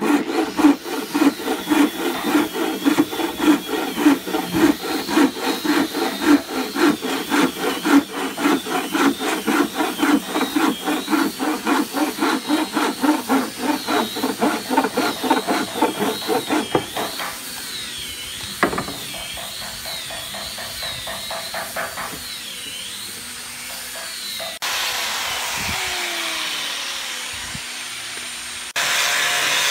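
Wooden-framed bow saw cutting a pine block by hand, with quick, even back-and-forth strokes at about three a second. The sawing stops a little past halfway, and a steady hiss takes over near the end.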